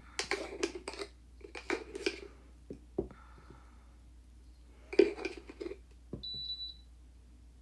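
Three short bursts of tapping and clinking, made by small nail tools and containers being handled while the soap-and-water bubble mixture is prepared. A few single light ticks fall between them, and a brief high beep sounds about six seconds in.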